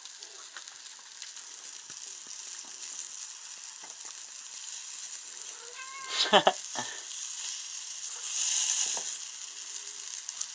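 Floured pink salmon pieces sizzling in a frying pan, with light taps of chopsticks against the pan and fish. A short, loud sound with a pitched edge comes about six seconds in, and the sizzle grows louder for about a second near eight seconds.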